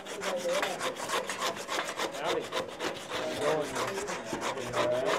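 Rapid back-and-forth rubbing, several strokes a second, with short squeaks mixed in.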